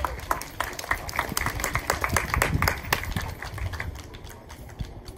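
Scattered, uneven hand claps, thickest in the first three seconds and thinning out near the end, over a low rumble.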